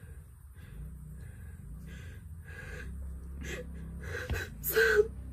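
A young woman's stifled laughter: breathy gasps about every half second, growing louder and breaking into voiced giggling near the end, over a low steady hum.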